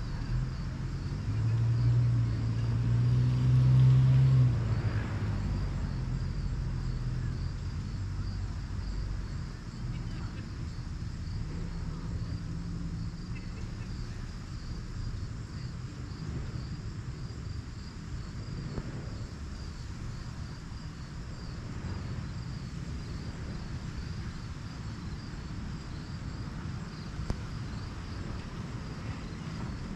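Outdoor ambience: a low engine hum swells and fades over the first five seconds or so, and a low rumble carries on after it. Under both runs a steady, high-pitched chirring of insects.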